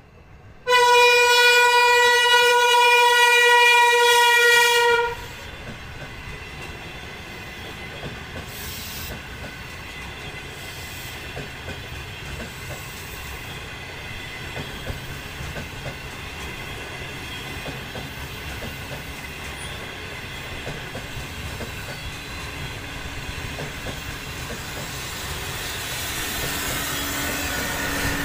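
Lane Xang electric multiple unit sounding its horn in one loud, steady blast of about four seconds that cuts off sharply, then the train running past with a steady noise of wheels on rails and faint regular clicks, growing louder toward the end as the carriages go by.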